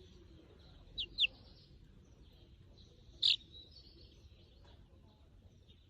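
Cockatiel chirping: two quick, short downward chirps about a second in, then one louder chirp a little past three seconds.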